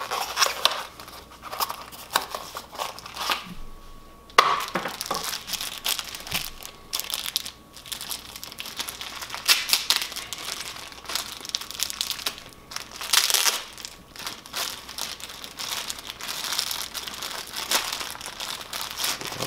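Plastic packaging crinkling and rustling in gloved hands as a new engine main bearing shell is unwrapped. The crackling is irregular, with a brief lull about four seconds in.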